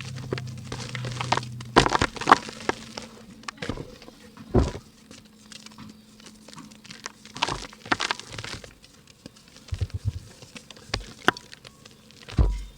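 Dry chunks of pink mud being crumbled and crushed by hand: irregular crisp cracks and crunches, with a few heavier crunching thuds, the loudest near the end.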